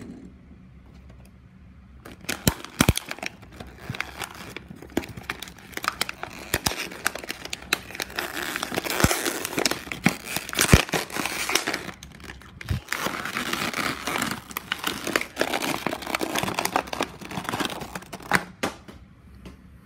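Plastic blister packaging of a toy diecast car being handled and torn open: crinkling, crackling plastic with many sharp clicks, starting about two seconds in and stopping near the end.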